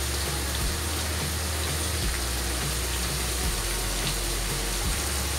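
Ground shallot and garlic paste frying in hot oil in a wok: a steady sizzle.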